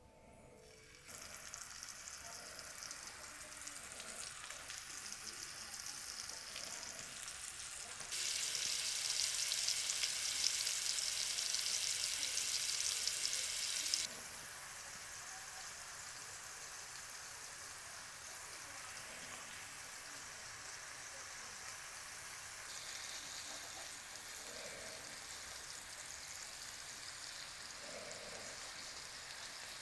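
Butter and olive oil frying in a hot pan, a steady sizzle. It jumps louder at about 8 s and drops back suddenly at about 14 s.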